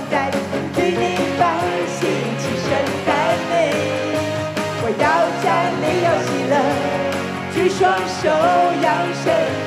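Worship music played on an electronic arranger keyboard: full chords with a moving melody, and a woman's voice singing over it.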